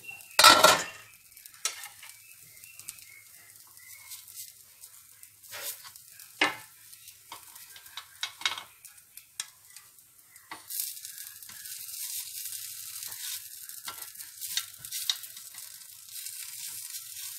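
Bánh khọt batter sizzling in the wells of a pan while a metal spoon clicks and scrapes against the pan, lifting out the cooked pancakes. A loud clatter comes about half a second in, and the sizzling grows louder from about ten seconds in.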